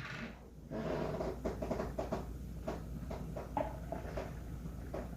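Faint, irregular clicks and taps of small plastic containers being handled, as a bottle is filled with food colouring.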